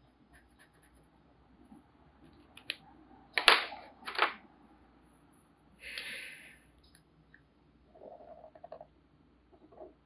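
Felt-tip markers being handled at a table: two sharp clicks under a second apart midway through, with faint scratching of a marker on paper around them and a short hissing rustle a couple of seconds later.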